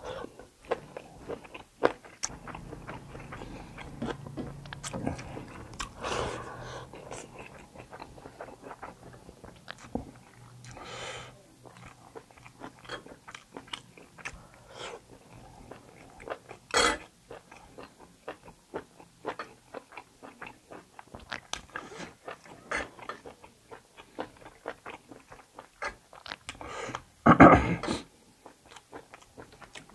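Close-miked eating of kalij pheasant cooked in curry broth: chewing and biting the meat and gizzard, with scattered crunches and mouth clicks and a few louder bites along the way.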